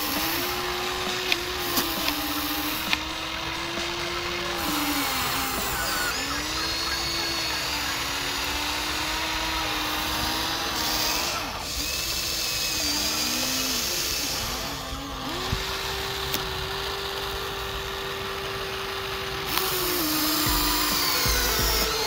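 Electric motors of a Huina remote-control toy excavator whining as it works its arm and bucket, the pitch gliding up and down as the motors start, hold and stop, with a few sharp clicks in the first few seconds.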